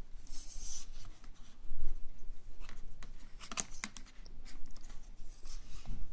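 Close handling noise of an iPhone 5 and its ejected SIM card tray: a brief rustle near the start, then a cluster of sharp clicks and taps around the middle.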